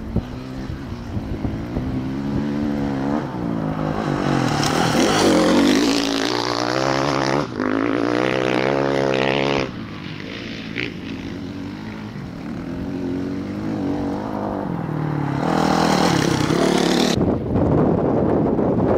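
Rally race engines going past at speed, two passes whose pitch rises as each comes near and falls away. There is wind noise on the microphone.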